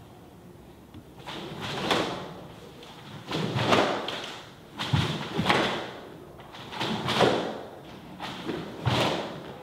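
Karate kata moves: bare feet stepping and stamping on a wooden floor and a karate gi snapping with each punch and block, one move about every second and a half.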